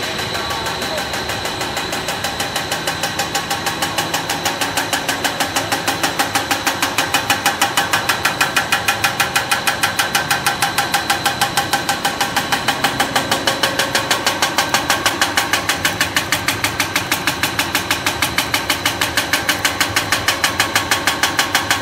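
Snack pellet production line machinery running: steady machine noise with a rapid, even mechanical clatter of several strokes a second, growing louder over the first few seconds and then holding steady.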